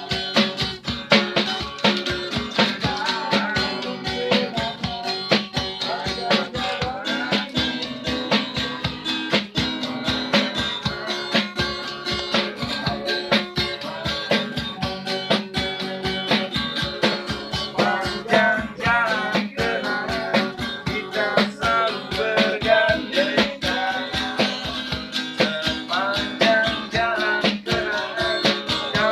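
Acoustic guitar strummed with a young man singing along, and a small hand-held drum beaten with a stick keeping a fast, steady beat: a street busker's song.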